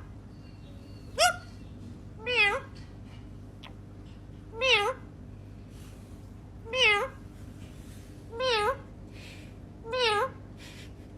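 Repeated meows: a short rising call about a second in, then five near-identical wavering meows, one every couple of seconds, over a steady low hum.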